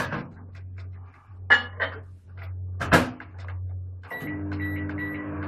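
Microwave oven being shut and set: a sharp clunk at the start, smaller clicks a little later and another loud clunk about three seconds in. About four seconds in, the oven starts running with a steady hum.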